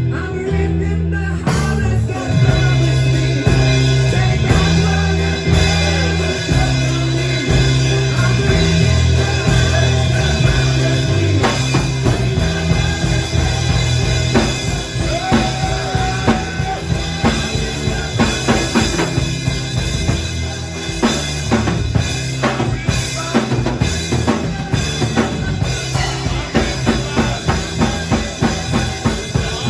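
Band music with a full drum kit playing a steady beat under sustained bass and keyboard-like chords; the drum hits become sharper and more prominent in the second half.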